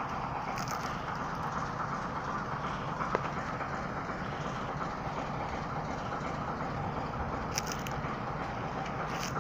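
Steady rushing outdoor background noise, with a couple of short sharp clicks.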